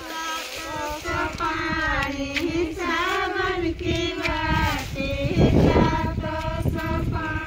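A group of women singing a devotional folk song together, voices held and wavering. A brief low rumble cuts in about two thirds of the way through.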